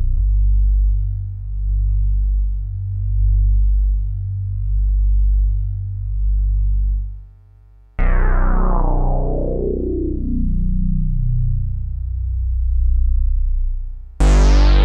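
Dark synthesizer ambience: a low droning pad that swells and ebbs about once a second, fading out about seven seconds in. It is followed by a sudden synth hit whose tones sweep downward, and a second, louder hit near the end.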